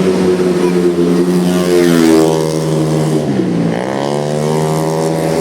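Tuned 131cc automatic scooter race engines running hard, more than one at once. A little over three seconds in, one engine's pitch drops steeply and then climbs back up.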